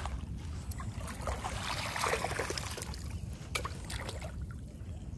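Shallow seawater splashing and trickling as it is stirred at the water's edge, busiest about two seconds in, with a few sharp clicks.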